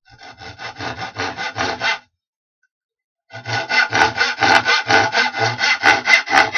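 Wood being worked by hand with fast, even back-and-forth strokes, like a hand saw or a rasp cutting into it, about four or five strokes a second. The strokes stop about two seconds in, start again a little over a second later, and quicken toward the end.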